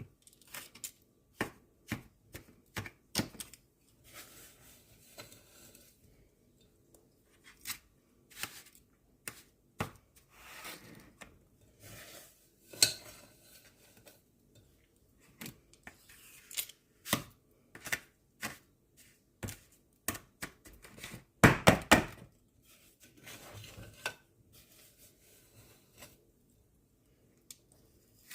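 A small scoop scraping up a damp, packed powder mixture and tapping it out into an ice cube tray: scattered clicks, taps and short scrapes, with a louder clatter of knocks about three quarters through.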